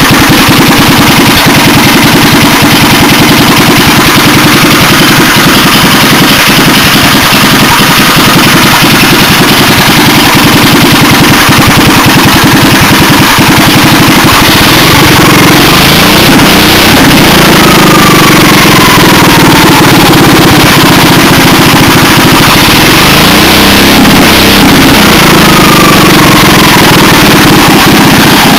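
Honda GV400 single-cylinder vertical-shaft engine running loud and steady, with its firing pulses plain; its speed shifts in the second half, with two falling whines.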